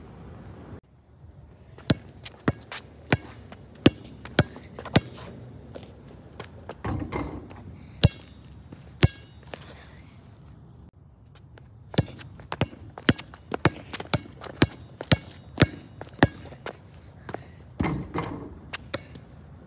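A basketball bouncing on concrete: a run of sharp, ringing bounces about two a second, a faster run later on, and two short spells of rushing noise in between.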